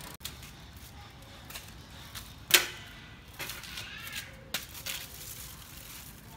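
Handling of a parked bicycle: one loud, sharp click about two and a half seconds in, with several lighter clicks and knocks after it.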